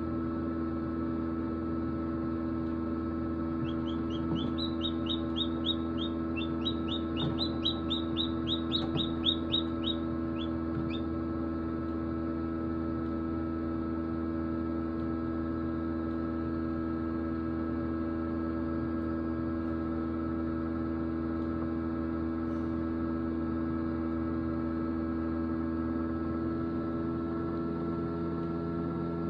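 A hatchling peeping in a quick run of short, high peeps, a few a second, starting a few seconds in and lasting about seven seconds. Under it the incubator's fan hums steadily.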